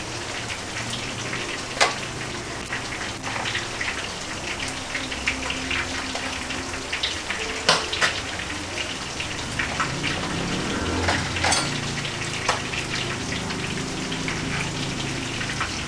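Plantain slices frying in hot oil in a pan, a steady sizzle and crackle. A few sharp clicks of a metal spoon against the plate come through as the fried slices are pressed flat.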